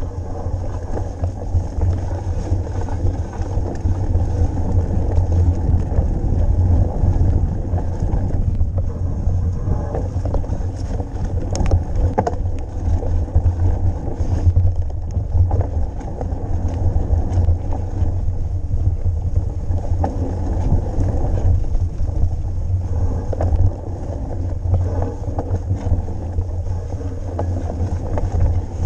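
Ride noise of a mountain bike on the move: wind buffeting the camera microphone and a steady low rumble from the tyres and bike over the trail, with a few short clicks and rattles.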